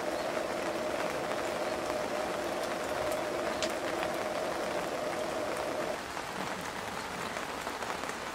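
Pouches of food warming in a wide pan of simmering water: a steady hiss with a faint steady tone that stops about six seconds in.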